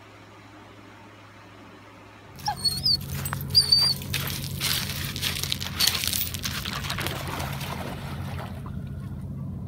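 A faint steady hum, as of an electric fan, for about two seconds. Then a dog runs over a pebble beach and splashes through shallow water after a thrown stick: crunching and knocks with a few short high squeaks, then a long rush of splashing that fades near the end.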